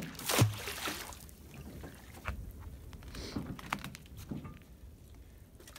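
A sharp knock, then scattered faint knocks and clicks around a floating boat dock as a magnet fishing rope is worked from its edge.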